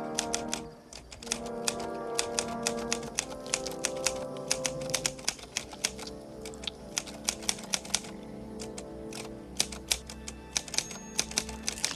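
Typewriter keys clacking in quick, irregular strokes over the film's score music.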